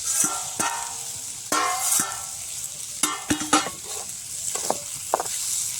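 Chopped onions and chillies frying in hot oil in a kadai, with a steady sizzle. A spoon knocks and scrapes against the pan now and then as they are stirred.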